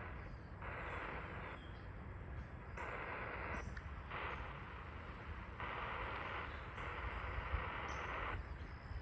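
Spirit box sweeping through radio frequencies: bursts of static hiss that cut in and out abruptly every second or so, with a low rumble underneath.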